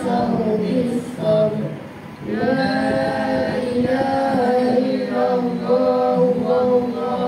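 Group of voices chanting together in unison, a slow melodic religious recitation with long held notes and a short pause about two seconds in.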